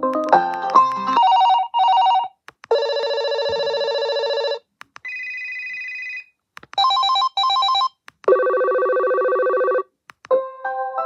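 BT Advanced digital home phone playing its ringtones one after another, each cut off after a second or two. The run goes: a quick electronic melody, a pair of short chirping rings, a long ring, a softer higher tone, another pair of short rings, another long ring, and near the end a new melody.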